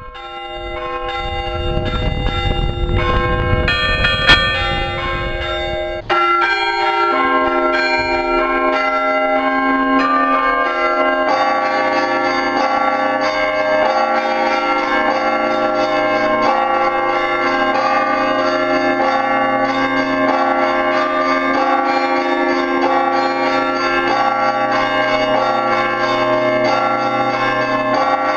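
Russian church bells ringing, several bells of different pitches struck over and over in a continuous peal. A low rumble lies under the first six seconds, and from about eleven seconds in the ringing grows denser as more bells join.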